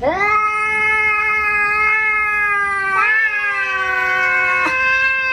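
A cat's long, drawn-out yowl held at a nearly steady pitch, wavering and rising briefly about three seconds in before carrying on.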